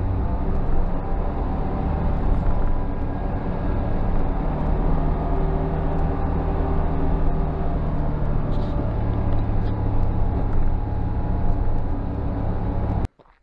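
UTV engine running under way, a steady drone that shifts a little in pitch, cutting off suddenly near the end.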